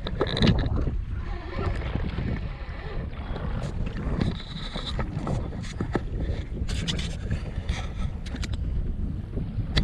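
Wind rumbling on the microphone aboard a small fishing boat, with scattered light knocks and clicks.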